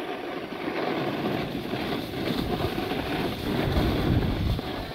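Wind buffeting the microphone of a camera carried by a moving skier, over the hiss of skis sliding on packed snow; the wind rumble swells about three and a half to four and a half seconds in.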